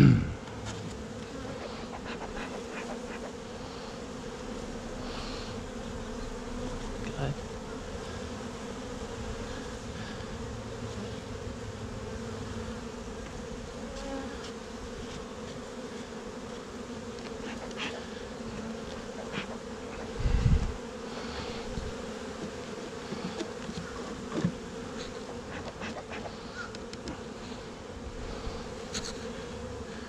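Honeybees buzzing around an open hive, a steady hum, with a sharp knock at the start and a dull low thump about twenty seconds in.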